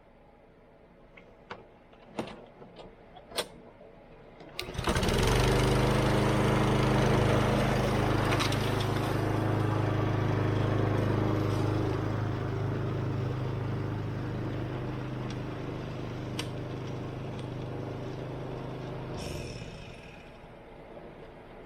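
A few light clicks, then the lawn mower's small Kohler engine starts about five seconds in and runs steadily at speed. It cuts off a couple of seconds before the end.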